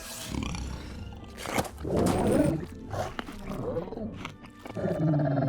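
Dragon vocal sound effects: several short pitched calls, each under a second long, over background music, with a sharp click between the first of them.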